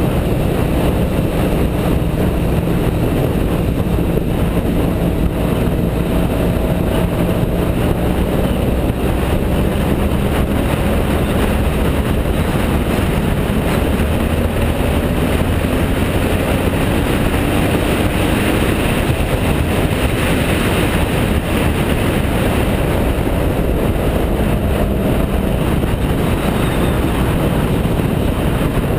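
BMW F650GS motorcycle engine running at road speed under a steady rush of wind and road noise, its pitch slowly rising and falling with the throttle through the bends.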